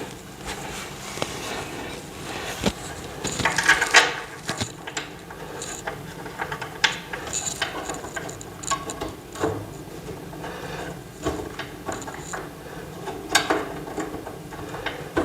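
Screws being turned in by hand while assembling a metal-framed TV stand: irregular clicking and ticking with light scrapes and knocks, a few louder clicks about four seconds in and near the end.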